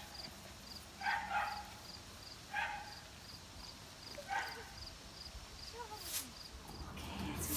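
A small Biewer Terrier giving about four short, sharp barks spread over a few seconds. A faint high chirp repeats about twice a second behind them, and there is a single sharp click near the end.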